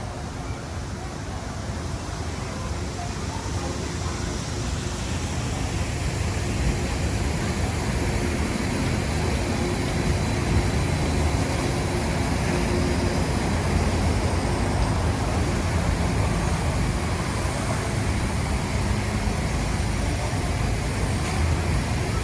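Disneyland Monorail running: a steady low rumble and hiss that grows slowly louder, with a faint steady hum through the middle.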